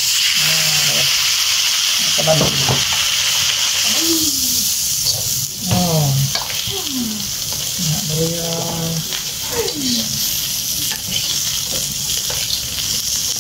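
Prawns sizzling in a hot wok of fried cereal crumbs as they are tipped in, then stirred and tossed with a metal slotted spatula. The sizzle is loudest at first and eases after about five seconds.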